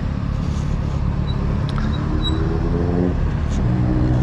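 Honda CBR sport bike's engine running at low revs while rolling slowly, its note rising briefly about halfway through, over a steady low rumble of wind and road noise.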